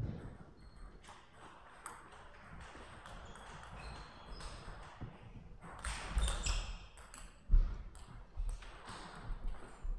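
Table tennis ball clicking off rackets and the table: a few scattered taps, then a quick run of sharp clicks in the second half as a rally is played.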